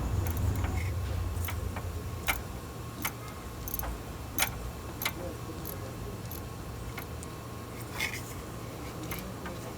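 Scattered sharp clicks and light metallic taps from tools and parts being handled during work on the A/C receiver drier: about half a dozen, spread irregularly, over a steady low hum.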